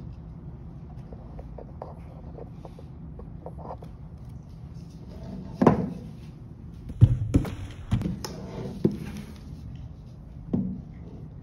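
Plastic insulated hotpot handled and lifted on a table: several knocks and thuds starting about halfway, over a steady low hum.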